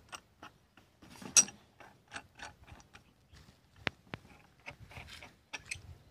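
Metal clicking and scraping as the nut of a steel pipe clamp on a borewell column pipe is tightened with a spanner. The short clicks come in quick runs, with a louder scrape about a second in and two sharp clicks near four seconds.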